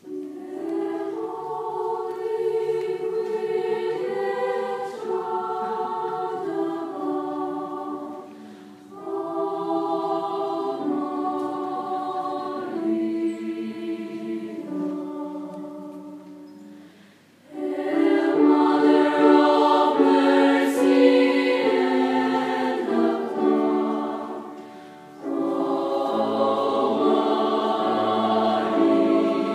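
Mixed youth choir singing in parts, sustained chords in four phrases with brief breaths between; the second half is louder.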